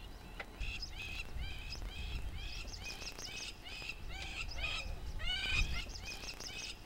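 A bird calling over and over: short high chirps that bend in pitch, about two or three a second, over a low background rumble.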